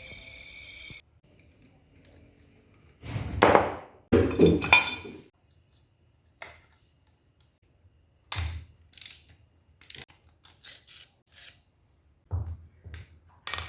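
Background music cuts off about a second in. It is followed by irregular clinks, clatters and knocks of metal tools and parts being handled, loudest in two clattering bursts a few seconds in and then in a string of shorter knocks.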